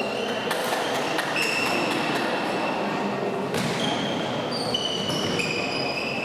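Tchoukball play in a sports hall: the ball knocks sharply a few times, and sneakers squeak on the court floor, each squeak at a different pitch, over the steady echoing murmur of the hall.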